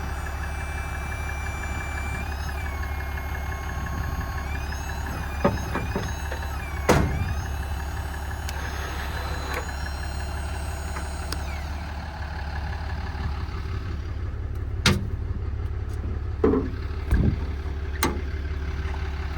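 An engine idling steadily, with a few sharp metallic knocks or clanks over it.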